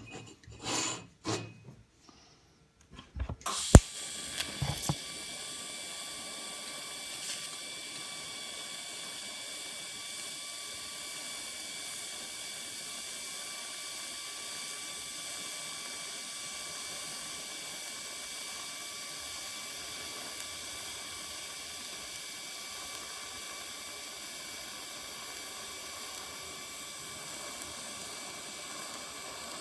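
A few light metallic clinks, then a sharp click about four seconds in as a TIG welding arc strikes and runs steadily with an even hiss and a faint high whine for the rest of the time.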